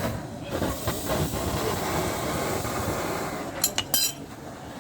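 Clinks of metal on metal, a quick cluster of sharp ringing strikes about three and a half seconds in, over a steady noisy background.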